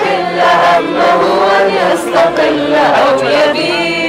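A crowd singing together in unison, many voices holding long notes.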